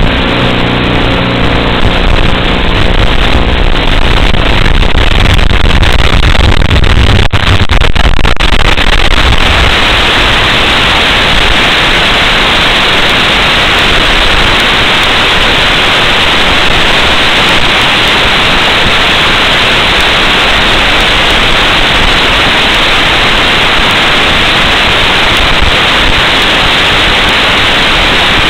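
Loud steady static hiss from an analog FPV video receiver's audio channel as the tiny-whoop drone's signal weakens and breaks up. For the first nine seconds a low electrical buzz with steady tones runs under the hiss; after that there is even hiss alone.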